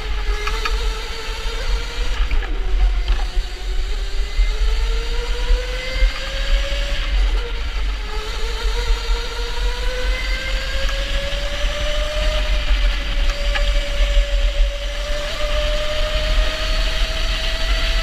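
Electric indoor go-kart's motor whining under way, its pitch dipping about three seconds in and again just after seven seconds, then climbing steadily. A steady low rumble runs underneath.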